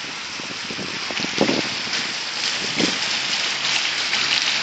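Fountain water pouring down a central column and splashing into its basin, a steady rush of falling water.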